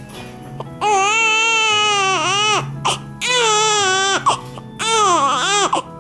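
Newborn baby crying in three long wails, each dropping in pitch at its end, with short catches of breath between them; the startled cry after her own sneeze. Background music plays underneath.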